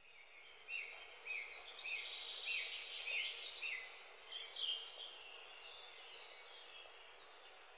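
Birds chirping faintly in an open outdoor ambience: a run of short high chirps, about two a second, for the first five seconds or so, over a soft steady hiss.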